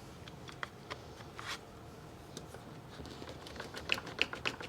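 Light clicks and taps of wooden beehive frame parts being handled and pressed into place, scattered through, with a quick run of sharper clicks near the end.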